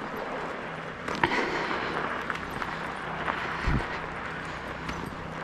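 Steady rushing noise of a Kickbike Fat Max's fat tyres rolling over a sanded, snow-packed road while it is pulled by dogs, with a few light clicks and one low thump a little past halfway.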